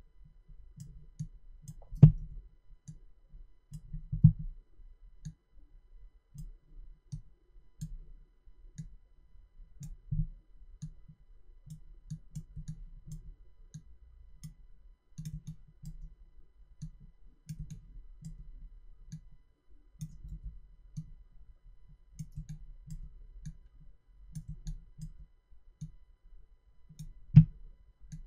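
Computer mouse clicking over and over, soft irregular clicks a few times a second, as anchor points are placed one after another along a path. Sharper, louder clicks come about two seconds in, about four seconds in, and near the end.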